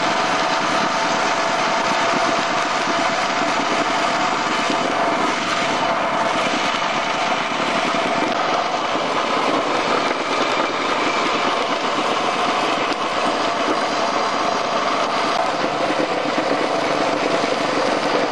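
Vibratory plate compactor running steadily, its engine and shaking steel plate rattling over stone paving slabs.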